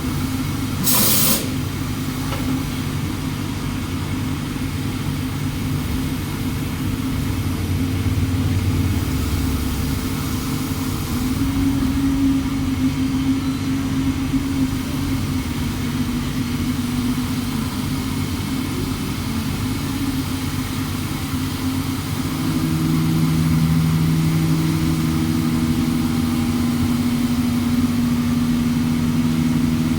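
CNC machine running with a steady low hum made of several steady tones, which shift in pitch about a third and two-thirds of the way through, getting a little louder the second time. A short hissing burst comes about a second in.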